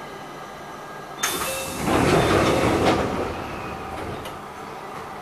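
Air-operated passenger doors of an Enshu Railway train closing at a station stop: a sudden hiss of compressed air about a second in, then a louder rumble of the door panels sliding shut that ends in a knock near three seconds and fades away.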